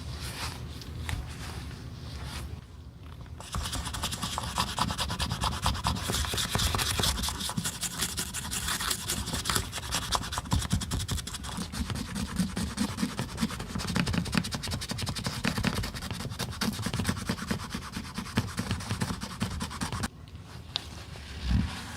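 Fast, continuous rubbing and scraping strokes of shoe-repair work on a high-heeled shoe. The strokes start in earnest a few seconds in and stop a couple of seconds before the end.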